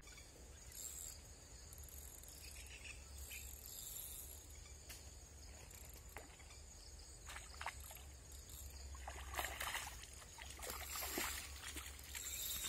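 Faint outdoor ambience at the water's edge: a steady high insect hum over a low rumble, with scattered short clicks and rustles that become more frequent in the second half.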